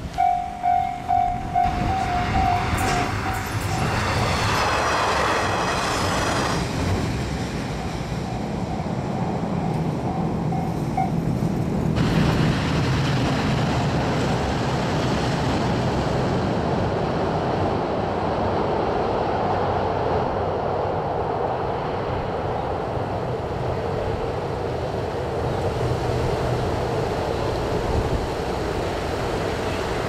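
A level-crossing warning bell dings rapidly, loud at first and fainter until it stops about eleven seconds in. Under it a diesel express train runs across a steel truss railway bridge with a steady rumble, which gets brighter about twelve seconds in and lasts to the end.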